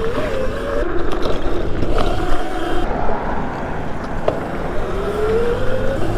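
Razor MX650 electric pit bike, upgraded with a 72-volt kit and MY1020 motor, riding on pavement: a motor whine that rises and falls in pitch with the throttle and climbs near the end. Under it is a steady rumble of wind and tyres, with a couple of knocks from bumps.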